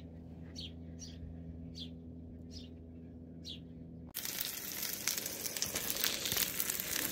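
A bird repeats a short falling chirp about once a second over a steady low hum. About four seconds in, beef chorizo starts sizzling loudly on a Blackstone steel flat-top griddle, with a metal spatula scraping now and then.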